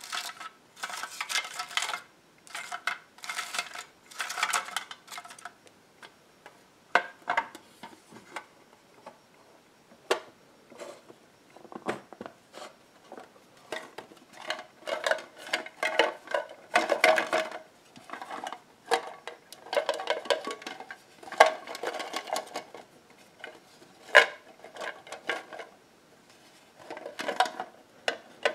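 Long fingernails tapping and scratching on a metal tin box in irregular clusters with short pauses, some taps leaving a brief metallic ring. In the first few seconds, folded paper slips shift inside the tin.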